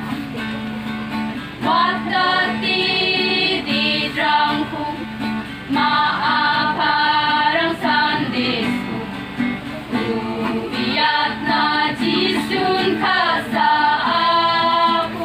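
Women's church choir singing a hymn together through a microphone and loudspeaker, in phrases broken by short breaths.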